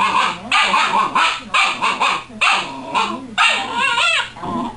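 Siberian husky puppy barking and yapping over and over, about two barks a second, with a longer wavering yelp about three and a half seconds in.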